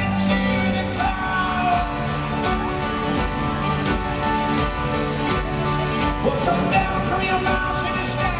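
Folk-rock band playing live in an arena: banjo and acoustic guitars strumming over a steady drum beat.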